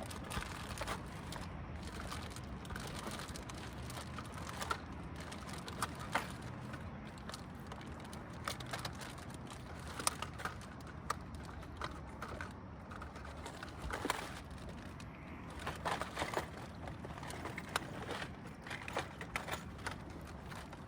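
Low steady hum, with many small light clicks and ticks scattered over it.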